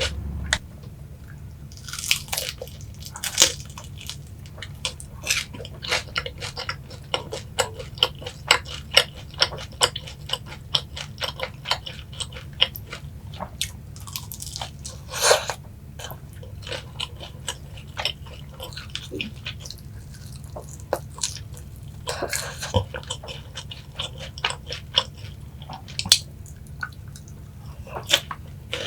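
Close-up biting and chewing of crisp boneless fried chicken coated in sweet-spicy yangnyeom sauce: a run of irregular crunches, one louder crunch about halfway.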